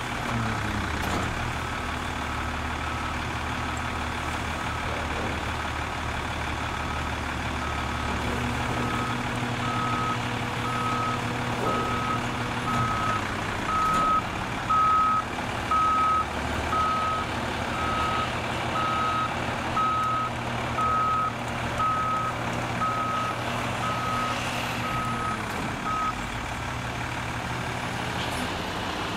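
Garbage truck diesel engine running steadily while a backup alarm beeps at a steady pace, roughly once a second, and stops a few seconds before the end. The engine's hum shifts in pitch about a second in, again midway, and as the beeping stops, with the tailgate raised to dump the load.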